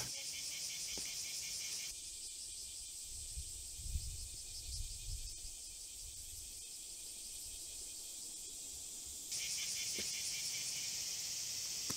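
Insects droning steadily in a high, finely pulsing chorus. The chorus drops in level about two seconds in and comes back up near the end, with a low rumble under it in the middle.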